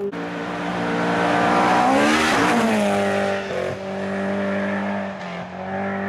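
Rally car passing at speed on a wet gravel stage. The engine note grows to its loudest about two seconds in and drops in pitch as the car goes by, then holds steady as it pulls away. A hiss of tyres throwing up gravel and water is strongest as the car passes.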